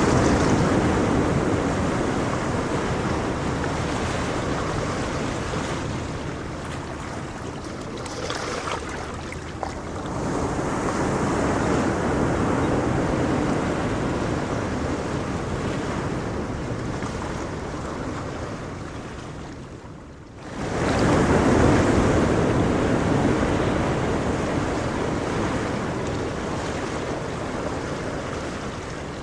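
Ocean waves breaking and washing in, a steady roar that swells and ebbs. About two-thirds through it drops away briefly, then a new wave crashes in suddenly.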